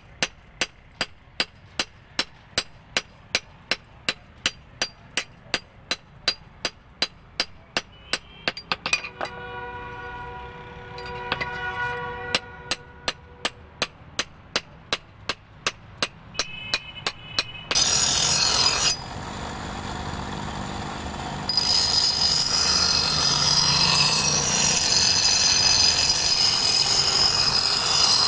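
Hand hammer striking a steel cleaver blade on an anvil block, about three blows a second, with the metal ringing for a few seconds in the middle. About two-thirds of the way through it gives way abruptly to a bench grinder's wheel grinding the cleaver's edge: a steady, harsh, hissing noise that eases off briefly and then comes back loud.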